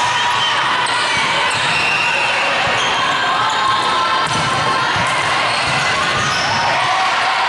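Crowd chatter and shouting echoing through a large gym, with a ball bouncing a few times on the court floor about halfway through.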